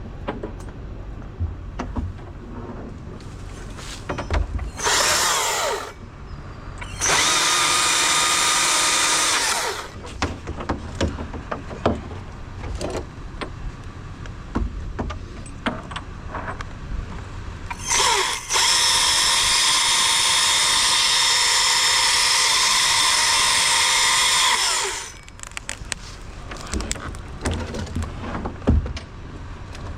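Chainsaw running at full speed in three bursts, a short one about five seconds in, a longer one from about seven seconds, and a long run of about seven seconds from the middle on, as pecan wood is cut. Clicks and knocks of handling come between the bursts.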